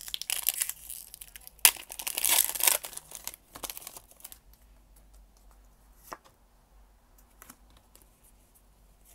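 A Pokémon card booster pack's foil wrapper being torn open and crinkled, with the loudest rip about two seconds in. The crackling dies down after about four seconds, leaving only a few soft clicks as the cards are handled.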